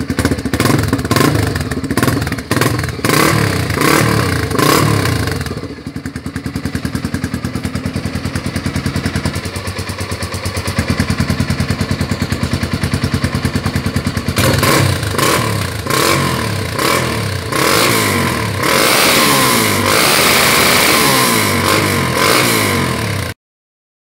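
Honda Twister 250 single-cylinder motorcycle engine running through its rebuilt homemade muffler, an old silencer fitted with the core of another. It is blipped in quick revs for the first few seconds, settles to a steady idle, then is revved repeatedly again from a little past halfway. The sound cuts off abruptly near the end.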